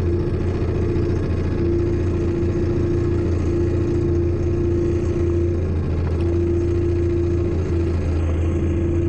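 Kawasaki JS550SX stand-up jet ski's two-stroke engine running steadily through a Coffman half-pipe exhaust.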